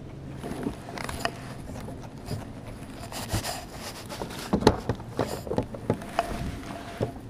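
Irregular scrapes, rustles and knocks from handling gear on a fishing kayak, with sleeve fabric rubbing close to the microphone; the loudest knock comes a little past halfway.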